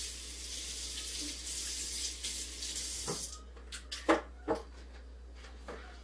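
Kitchen sink tap running as celery stalks are rinsed under it. The water shuts off about three seconds in, followed by a few short knocks as things are handled.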